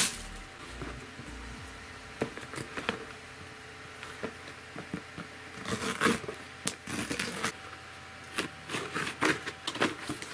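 Handling noises: rustling and scraping as fursuit paws are pulled off, then a cardboard box being handled and opened, with scattered light clicks. The rustling is busiest about six seconds in and again near the end.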